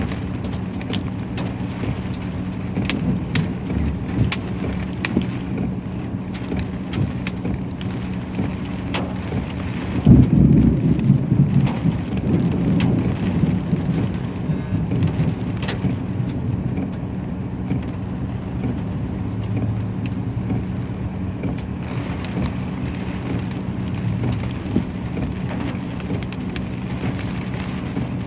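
Heavy hail falling, a steady patter with many sharp ticks of ice stones striking hard surfaces. A steady low hum runs underneath, and a louder low rumble rises about ten seconds in and fades over a few seconds.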